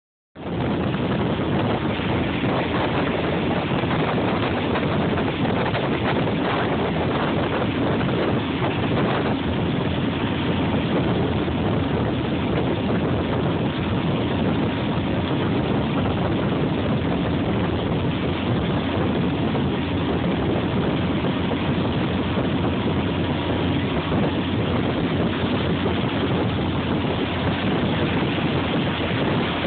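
Motorboat running steadily at towing speed, heard from on board: constant engine noise mixed with the rush of water and wind.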